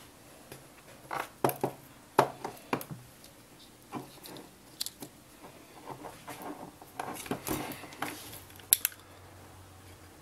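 Irregular small clicks, taps and rustles of hands handling an RC car ESC's wires while setting up to solder them. A sharp tick near the end is the loudest.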